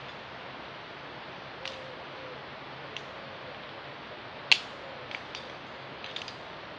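Metal climbing hardware on a harness and lanyard clinking and clicking as it is handled: a handful of sharp ticks, with one louder clink about halfway through and a short cluster of light clicks near the end.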